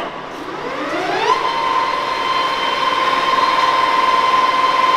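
Summit 28" x 120" engine lathe's geared head starting up. A click as the spindle lever engages, then a gear whine rising in pitch for about a second and a half as the spindle comes up to speed, then running at a steady high whine.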